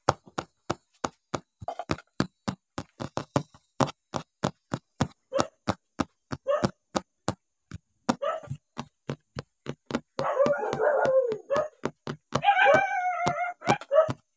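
Puppies eating rice from bowls, with a steady run of quick clicks and knocks, about three a second. About ten seconds in a dog gives a short rough vocalisation, followed by a higher call with a wavering pitch.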